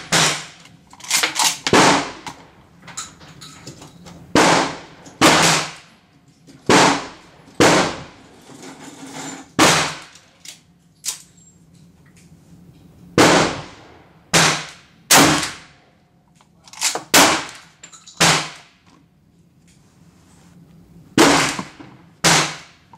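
Gunshots at a shooting range: many sharp, loud shots at irregular intervals, each with a short echo. Some come only a fraction of a second apart, too close together for one pump shotgun, so more than one gun is firing, 12-gauge slug loads among them.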